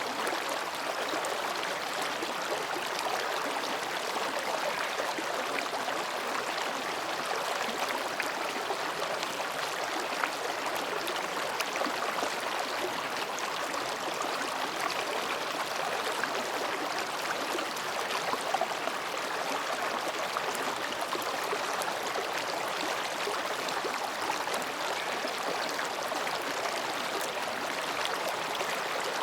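Mountain stream flowing between rocks: a steady babble of water with fine splashing detail.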